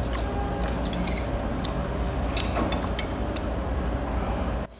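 Restaurant table ambience: a steady low hum with scattered small clinks and clicks of utensils against bowls while eating.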